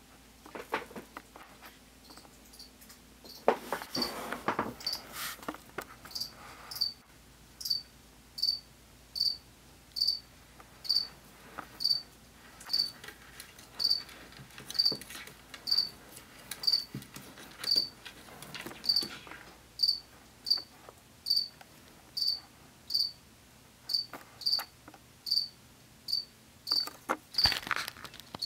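A cricket chirping in a steady, even series of short, high chirps. Brief rustling and handling noises come a few seconds in and again just before the end.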